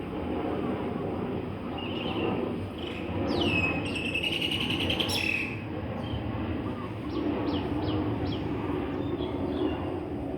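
Small birds calling: a burst of high sweeping calls and a trill about three to five seconds in, then a quick run of short falling chirps, over a steady low background rumble.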